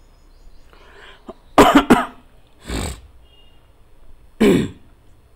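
A person coughing: two sharp coughs in quick succession about a second and a half in, a short breath, then another cough near the end.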